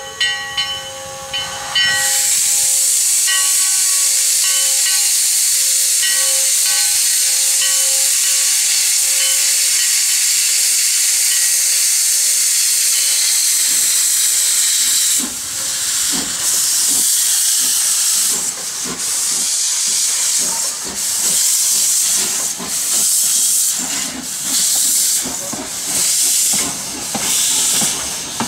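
2-6-0 steam locomotive blowing steam from its open cylinder cocks in a loud, steady hiss. About halfway through, the hiss breaks into pulsing chuffs, about one a second, as the engine works along the track.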